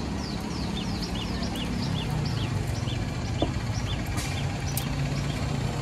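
A small bird calling in a rapid series of high, down-slurred chirps, about three to four a second, trailing off around three seconds in. Underneath runs a steady low engine hum.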